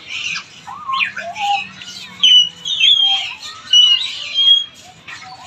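African grey parrots chattering and calling, a busy mix of chirps and squawks with several loud, clear whistles through the middle.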